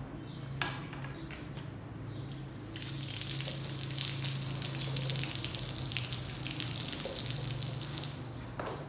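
Jet of water spraying onto a dirty rug on paving with a steady hiss, starting about three seconds in and stopping just before the end, over a steady low hum.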